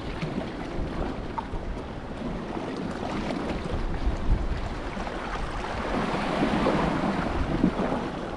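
Wind buffeting the microphone over the steady wash of waves, swelling louder about six seconds in.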